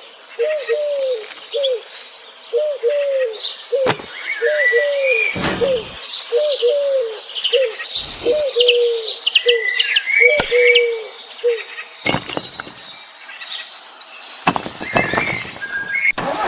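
Birds calling: a low, arched call repeated in quick groups of two to four, with higher chirps and whistles over it. A few sharp knocks fall between the calls.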